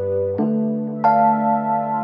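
Background music of slow, sustained chords, a new chord struck about half a second in and another about a second in.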